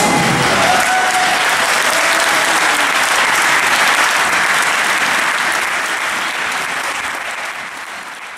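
Audience applauding, with the last of the music tailing off in the first second; the clapping fades out over the last few seconds.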